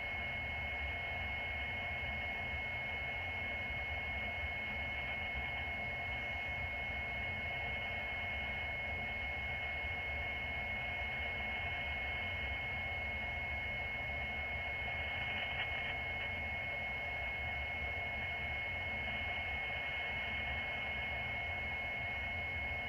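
Steady hiss and low hum of a radio scanner with no one transmitting, with a constant high-pitched tone running through it.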